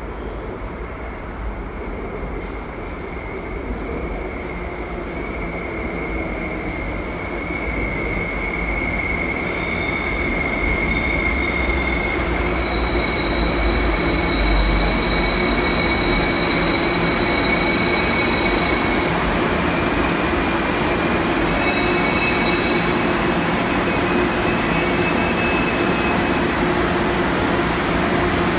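Seoul Subway Line 2 train pulling into the platform and braking to a stop. Its running noise grows louder over the first ten seconds or so. A high-pitched wheel and brake squeal runs through most of the arrival, fades about two-thirds through, and gives a few shorter squeaks near the end as the train halts.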